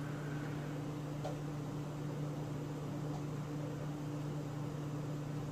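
Steady low electric hum, two even tones over a light hiss, unchanging throughout.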